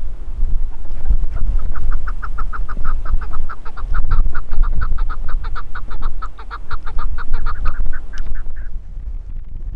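A bird calls a long, fast series of short clucking notes, about six or seven a second, which slow and stop near the end. Wind buffets the microphone throughout.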